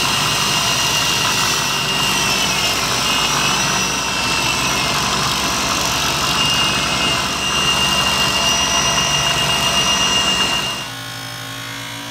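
Belt grinder running with a hardened steel knife blade held against the abrasive belt: a loud, steady grinding noise with a high whine over it. Near the end it gives way to the quieter, lower hum of a buffing wheel motor.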